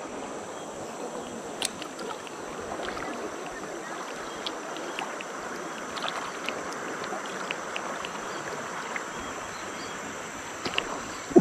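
River rapids rushing steadily over a shallow rocky bed, with scattered small ticks and splashes.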